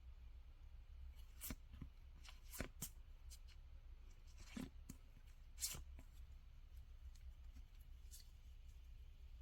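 Quiet handling of packaging and small items: a scattering of soft rustles and short clicks, irregularly spaced, over a low hum.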